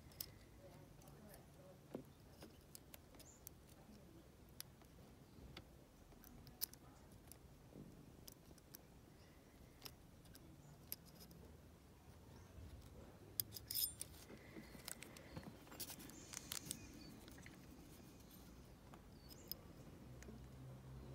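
Near silence with faint, scattered small clicks and plastic rustles from hands working a brass dimple-lock cylinder wrapped in a plastic bag, the clicks bunching together a little past the middle.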